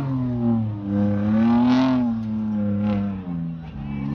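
Pickup truck's engine revving hard under load as it climbs a steep dirt hill, the revs rising and falling: up about two seconds in, down a little past three seconds, and climbing again near the end.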